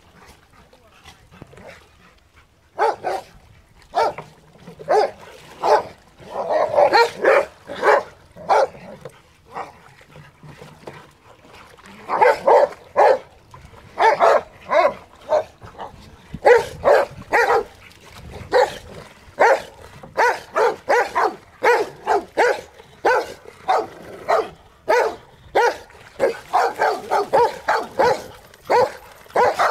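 Rottweilers barking in play, many short barks in quick flurries. The barking starts about three seconds in and comes almost without a break in the second half.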